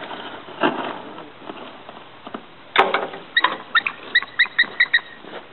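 Bald eagle calling a quick string of high, thin chirping notes, about ten in under two seconds, starting a little after a sudden thump about halfway through.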